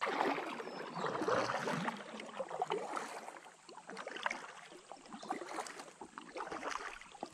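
Kayak being paddled on calm river water: irregular splashing and dripping from the paddle, with water lapping at the plastic hull.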